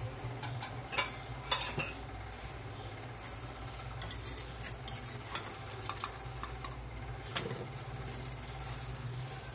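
Slotted metal spatula clinking and scraping against a wok-style kawali as it works under a thin pancake to loosen and turn it: scattered sharp clicks over a steady low hum.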